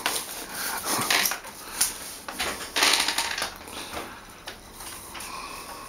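Hand scraper rasping and tearing old wallpaper off a wall in a few short, scratchy strokes, the loudest about three seconds in.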